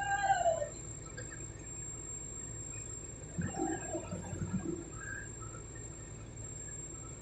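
A bird call with an arched, falling note right at the start, and more calls about midway, over a steady low engine hum.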